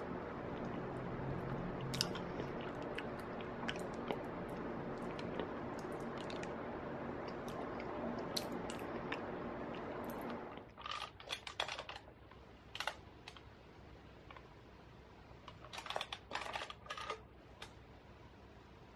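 Eating sounds: a spoon clicking and scraping against a glass cup of yogurt, with chewing. A steady hum runs under the first half and cuts off suddenly about halfway through, leaving the scattered clicks over a quieter background.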